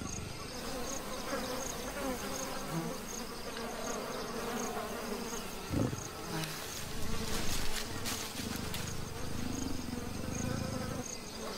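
Flies buzzing around a dead wild boar, over a short insect note that repeats about one and a half times a second. In the middle come bursts of rougher noise as a leopard tears and chews at the carcass.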